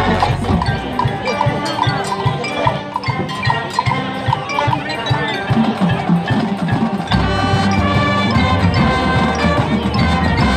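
Marching band playing its field show: about seven seconds of short, repeated pitched percussion hits over a thinner band texture, then the full band comes in with sustained brass chords.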